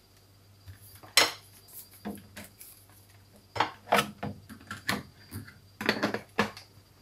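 Scattered plastic clicks and knocks as a hand blender's motor unit is fitted onto its chopper bowl and lid, one sharp click about a second in and small clusters of knocks later; the motor is not yet running.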